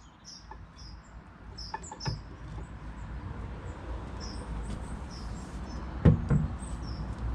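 Small bird chirping over and over in short high calls, with a few light clicks and a sharp knock about six seconds in from the brake work.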